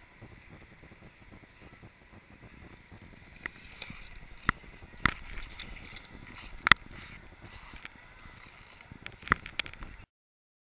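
Skis sliding over packed snow during a run-in to a jump, a steady rushing with wind on the microphone, broken by several sharp knocks, the loudest about two-thirds of the way through. The sound cuts off abruptly just before the end.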